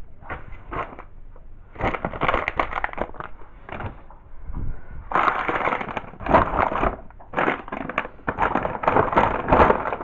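Close rustling and crinkling in irregular bursts, from things being handled right by the microphone.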